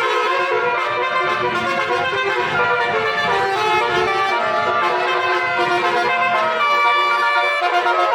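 Car-mounted Basuri "telolet" horn, a set of trumpet horns sounding several tones at once and switching notes to play a tune. A low rumble underneath stops near the end.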